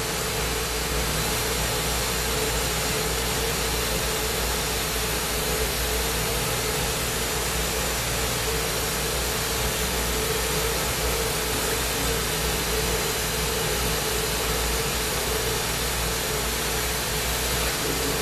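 Steady hiss and rush of a glassblower's bench torch burning, over the even hum of shop ventilation.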